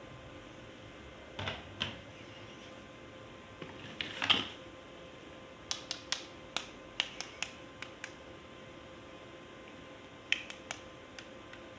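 Sharp plastic clicks and snaps from toys being handled: a pair of clicks, a louder rustling snap about four seconds in, then a run of about nine quick clicks, and a few more near the end.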